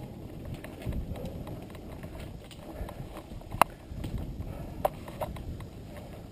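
Mountain bike rolling over a dirt singletrack trail, heard from a helmet-mounted camera: a steady low rumble of tyres and rattle, broken by a few sharp clacks. The loudest clack comes about three and a half seconds in, and two more come near the end.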